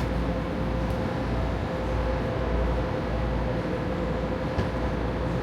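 Las Vegas Monorail train running, heard from inside the car: a steady low rumble with a faint constant tone above it.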